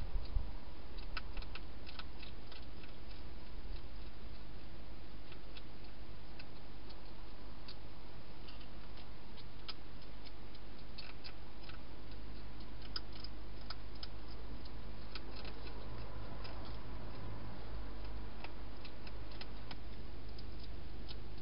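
Wild hedgehog eating: an irregular run of small, sharp clicks and crunches from its chewing, with a thump at the very start, over a steady low hum.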